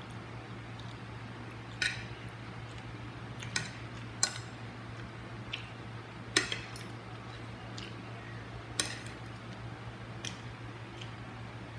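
Cutlery clinking against a plate while eating, with about five sharp clinks a second or more apart and a few fainter taps, over a steady low hum.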